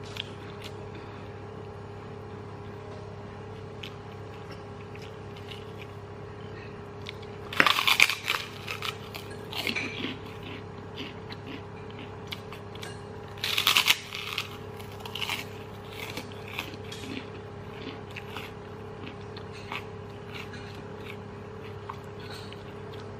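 Large white puffed cracker (kerupuk) bitten with a loud crunch twice, about six seconds apart, each followed by softer crunching as it is chewed, over a steady low hum.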